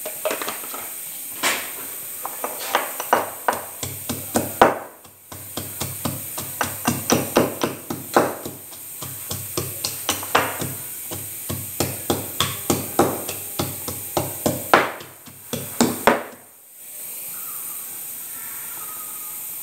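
Marble pestle pounding in a marble mortar, stone striking stone about three times a second as garlic cloves are crushed. There is a brief pause about five seconds in, and the pounding stops near the end.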